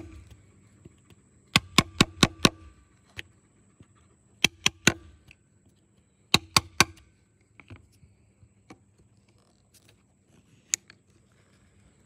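Hammer tapping a flat screwdriver used as a chisel into a wood slab to dig out a piece of embedded metal: three quick bursts of three to five sharp blows, then a single blow near the end.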